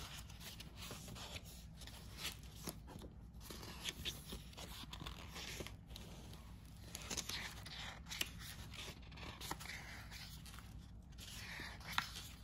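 Sheets of a patterned designer series paper pad being leafed through by hand: soft, scattered rustling and flicks of paper as the sheets turn, with one sharper snap of a sheet near the end.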